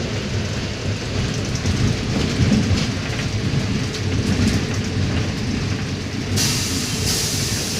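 Iveco CC170E22 bus engine running, a steady low, noisy drone. A loud hiss joins about six seconds in.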